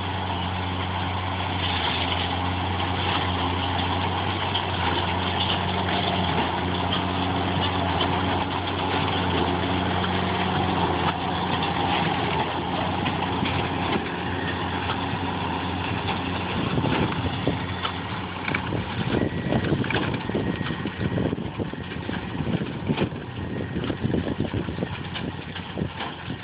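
Fendt 716 tractor's six-cylinder diesel running steadily while pulling a New Holland BB940 large square baler, loudest as it passes close and then fading as it moves away. In the second half irregular knocks and thumps from the working baler come to the fore over the engine.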